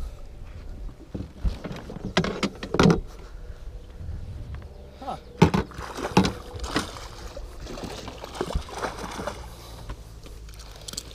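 Water splashing and sloshing at the side of a small fishing boat as a freshly caught bowfin is worked into the landing net, with scattered sharp knocks against the boat.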